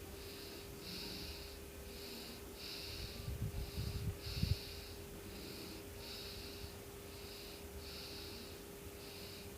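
Domestic cat purring close to the microphone, a steady rhythm of rasping pulses alternating stronger and weaker with each breath in and out, about one pulse every half second or so. A few soft knocks and bumps come about three to four and a half seconds in.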